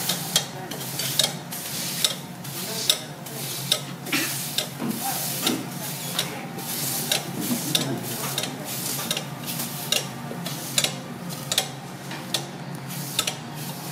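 Salted prawn frying on a steel teppanyaki griddle, pressed flat under a steel press: a steady sizzle with frequent irregular crackles and pops.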